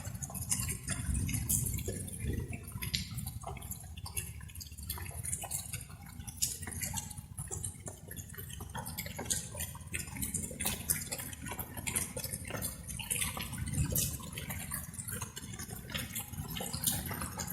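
Light rain, its drops dripping and tapping irregularly several times a second over a low steady rumble.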